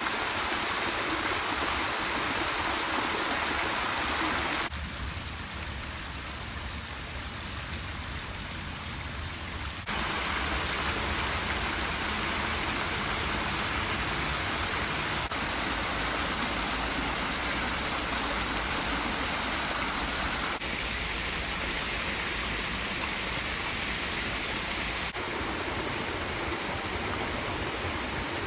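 Mountain stream water rushing and splashing over rocks as a steady hiss. Its loudness and tone shift abruptly every five seconds or so as the recording cuts between spots along the stream.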